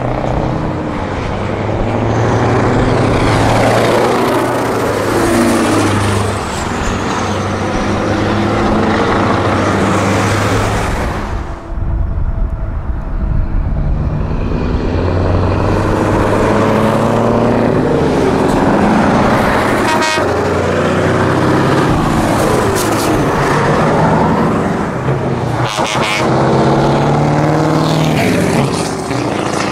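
Classic heavy trucks' diesel engines driving past one after another, loud, each rising and falling in pitch as it goes by, with horn toots among them.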